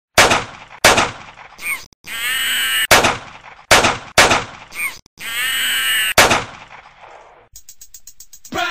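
Pistol gunshots, six single sharp bangs, with a harsh, wavering cry between them; the same shots-and-cry pattern plays twice.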